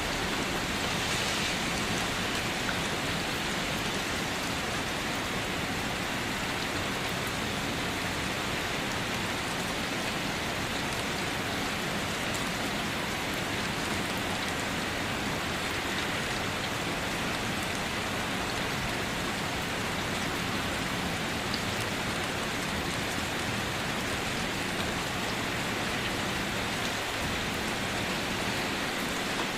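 Steady rain falling on a car, a dense, even patter of drops.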